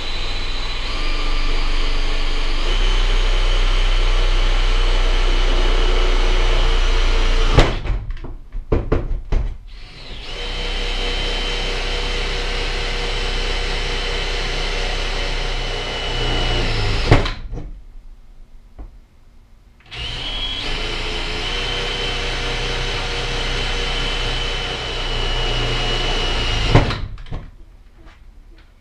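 Cordless drill running at a steady speed in three long runs of about seven seconds each, drilling into the trailer wall's subframe. Each run ends with a sharp knock, and there are short clicks between the runs.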